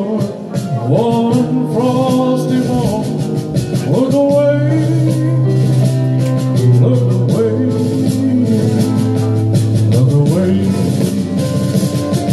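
Man singing into a microphone over a recorded backing track played from a computer, with a steady beat throughout.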